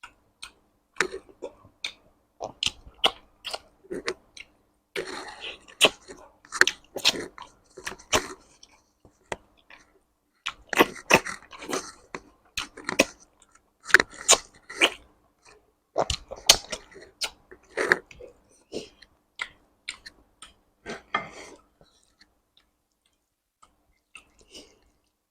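Close-miked chewing and wet mouth sounds of eating rice and curry: quick clusters of smacking clicks, with a short pause near the end.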